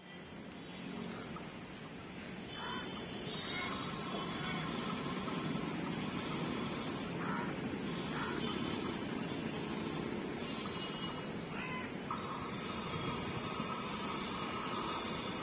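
Distant train approaching along the line, a steady rumble growing slightly louder, with a high steady tone that stops and starts several times and then holds steady over the last few seconds.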